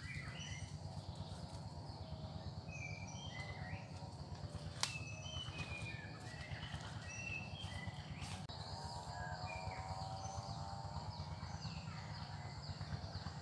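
Forest ambience: birds giving short chirps and whistles over a continuous insect drone and a low buzz, with one sharp click about five seconds in.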